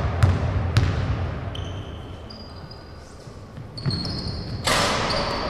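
Basketball bounced on a hardwood court floor three times about half a second apart, echoing in a large sports hall, then thin high shoe squeaks and, near the end, a louder rush of noise as play resumes.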